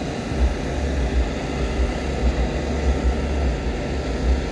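Wind buffeting the camera microphone: an uneven low rumble that pulses irregularly, over the faint hubbub of an outdoor crowd.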